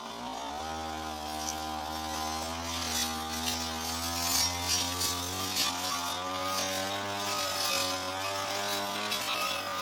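Two-stroke brush cutter engine revving up just after the start, then running at high speed with its pitch wavering slightly as it cuts tall, thick grass, with short crackles from the cutting head striking the stems.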